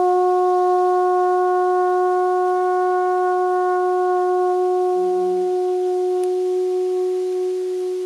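Alphorn held on one long, steady low note, fading slightly toward the end.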